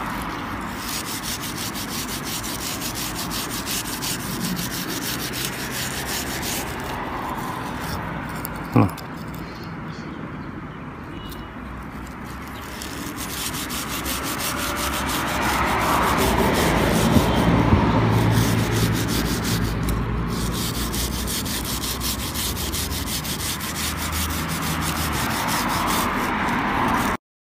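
Continuous rubbing and scrubbing as the rubber blade strip of a windshield wiper is wiped clean of dirt, getting louder past the halfway point, with one brief knock about nine seconds in.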